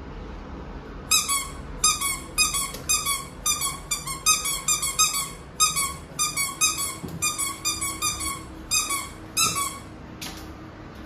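Rubber dog-toy bone squeaked over and over by a hand, about two short, high squeaks a second, stopping just before a brief rustle near the end.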